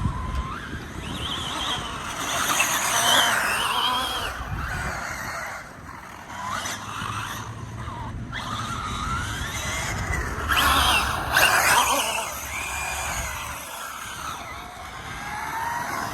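Electric motor and drivetrain of a 1/7-scale RC car whining, the pitch rising and falling as the throttle is worked, with tyre and running noise and louder surges a few seconds in and again around the middle.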